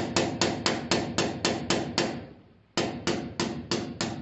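Hand hammer striking a thin rod held as a punch against the end of a transfer pump, knocking a small stuck part out of it. Quick even blows, about four a second, each with a brief ring, with a pause of most of a second midway before the hammering resumes.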